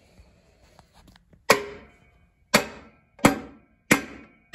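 Five sharp metallic knocks with a short ring, spaced unevenly: the low/reverse clutch support of a 700R4 automatic transmission being knocked down into the case past the clutch spring.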